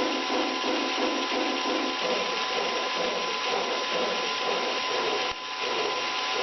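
Loud, steady mechanical clatter with a constant whine, beating about three times a second, its rhythm loosening about two seconds in; it cuts off suddenly at the end.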